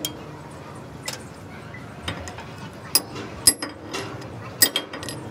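A steel rod knocking and clinking inside the bore of an excavator front-axle steering knuckle: about half a dozen irregular, sharp metallic taps.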